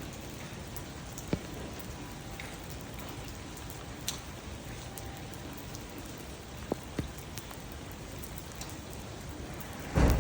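Steady hiss with scattered sharp ticks, and a louder thump at the very end.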